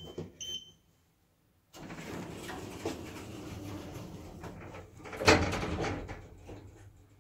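Schindler 3300 lift: a short beep as a floor button is pressed on the car's keypad, then the sliding doors running shut with a steady noise, and a loud clunk about five seconds in, after which the sound fades.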